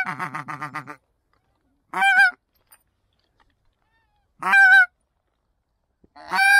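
Goose honks: single loud, clean calls about every two and a half seconds, the first followed by a quick run of rapid, lower notes.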